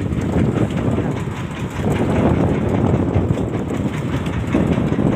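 Fishing boat's engine running steadily, a loud low rumble with a faint rhythmic clatter.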